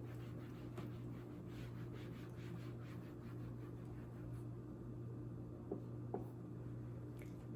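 Faint scratching strokes of writing on a surface, a run of short strokes in the first few seconds and a couple of small ticks later, over a steady low electrical hum.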